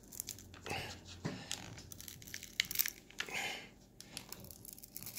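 Irregular crinkling, tearing and scratchy clicks of the glued-in battery and its adhesive being pried and peeled out of an iPhone 6 Plus.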